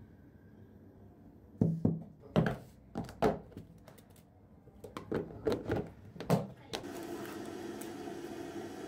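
A series of about nine short knocks and thuds in a small room, the loudest in the first half, followed from about seven seconds in by a steady rushing noise with a low hum.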